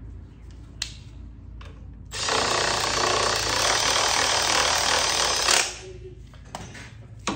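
Cordless power tool running for about three and a half seconds as it drives the kickstand pivot bolt home on a motorcycle. A few sharp clicks of tool and metal parts come before and after it.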